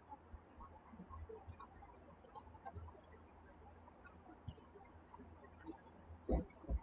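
Faint computer mouse buttons clicking in quick pairs and small clusters, about once a second. Near the end come a couple of dull low thumps, the loudest sounds.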